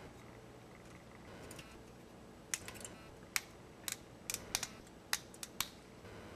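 Needle-nose pliers tearing at the wire mesh of a metal dish strainer, the wires snapping in a series of sharp, irregular clicks, about a dozen of them, starting a couple of seconds in.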